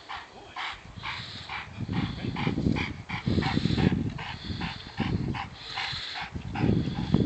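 A dog barking rapidly and steadily, about three barks a second. A louder low rumbling noise comes and goes from about two seconds in.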